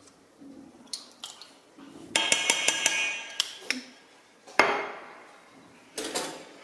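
Rapid metallic clinking with a bright ringing tone on a stainless steel mixing bowl for about a second, then a sharp knock as a glass vinegar bottle is set down on the counter, and another light knock near the end.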